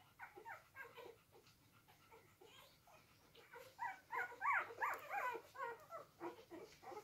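Four-day-old golden retriever puppies squeaking and whimpering while nursing: a run of many short cries that grow loudest and thickest from about four to five and a half seconds in.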